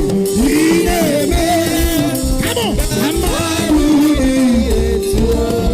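Live gospel band music, a lead melody bending in pitch over a steady beat and low bass.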